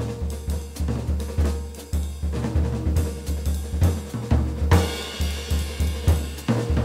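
Jazz drum kit played busily with sticks on snare, bass drum and cymbals, over low upright bass notes. A cymbal crash rings out about five seconds in.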